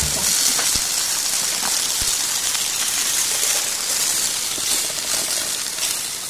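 Breaded fish fillets frying in a skillet over a campfire: a steady high sizzling hiss with a few faint pops, easing off slightly near the end.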